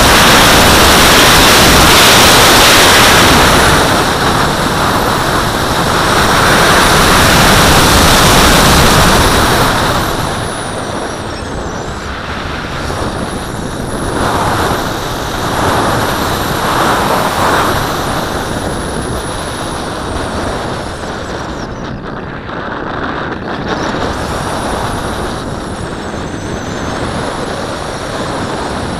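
Airflow rushing over an onboard camera on a radio-controlled glider in flight: a loud, steady wind rush that eases off about ten seconds in, with faint wavering high whistles after that.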